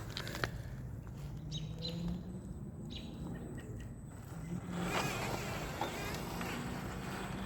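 Electric motor of an RC scale truck buzzing as it drives, its pitch rising and falling with the throttle. It grows louder and rougher about five seconds in.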